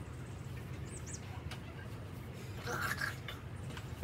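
A small bird chirping twice in quick succession, high and brief, about a second in, over a steady low background hum; a short burst of noise follows near three seconds.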